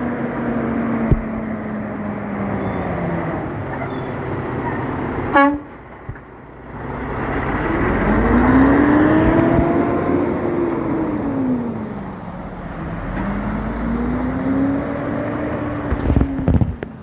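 Freightliner Cascadia class 8 truck's diesel engine running on the road, its pitch sliding slowly down, then rising and falling twice. A short, loud blast of the truck's Hadley air horn about five seconds in.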